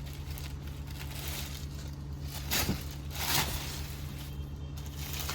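Silk saree fabric rustling and crinkling as it is handled and spread out, with two louder swishes a little past the middle, over a steady low hum.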